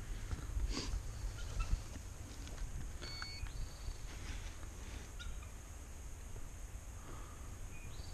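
Steady low wind rumble on the microphone, with a few faint, short high chirps and whistles from bald eagles scattered through it.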